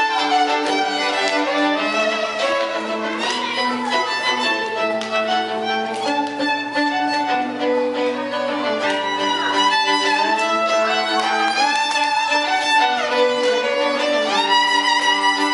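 Two violins playing a duet, with a few sliding notes.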